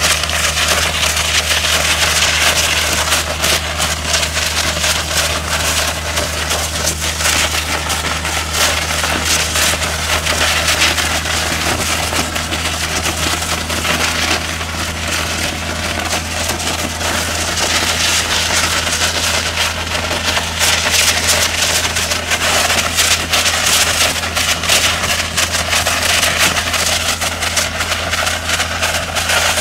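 Aquajet Aqua Cutter 710V hydrodemolition robot's high-pressure water jet blasting away concrete from a quay wall: a loud, dense, crackling hiss that holds steady throughout, over a steady low engine hum.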